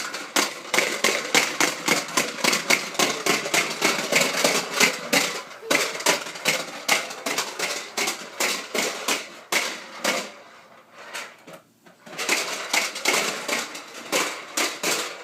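Rapid, irregular knocking and clattering, several sharp hits a second, breaking off for about two seconds past the middle and then starting again.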